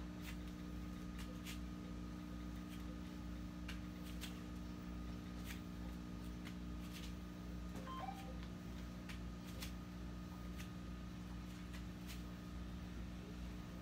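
Steady low mechanical hum with a faint high whine, with soft irregular taps and clicks scattered through it.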